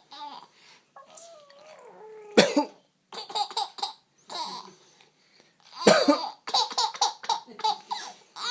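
An adult coughing, two sharp coughs about two and a half and six seconds in, and a baby laughing in short bursts between and after them. The baby's laughter is set off by the coughing.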